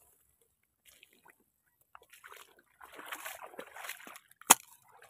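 Footsteps squelching through wet mud and brushing through grass, with one sharp click about four and a half seconds in.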